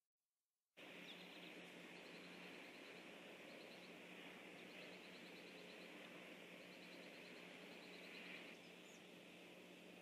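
Faint outdoor ambience from a bird-cam microphone: a steady hiss, with faint runs of rapid high ticks now and then. The sound is cut out completely for about the first second.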